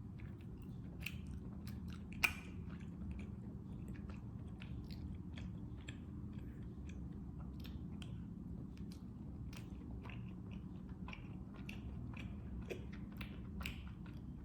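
Close-miked chewing of a soft, springy glutinous rice ball coated in sauce, with many small wet mouth clicks and one sharper click a little over two seconds in.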